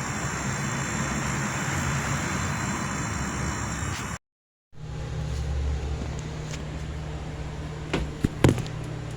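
Refrigerator compressor running with a steady low hum after its refrigerant gas charge, with a steady hiss over it in the first few seconds. After a brief cut, a few sharp knocks come near the end and are the loudest sounds.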